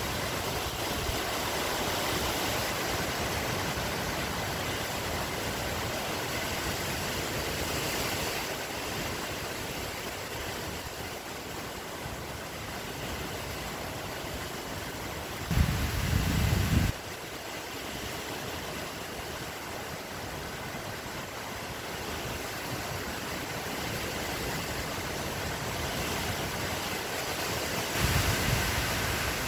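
Steady outdoor background hiss with no clear pitch or rhythm, broken by a brief low rumble on the microphone just past halfway and another near the end.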